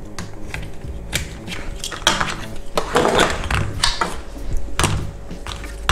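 Plastic clicks, taps and knocks as an instrument cluster's circuit board is handled and set back into its plastic housing. The knocks grow louder and more frequent from about two seconds in, over background music.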